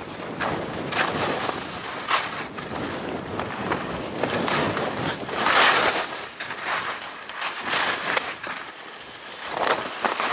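Skis scraping and carving over thin early-season snow in a series of turns, a surge of hiss with each turn and the loudest about halfway through, with wind rushing over the microphone.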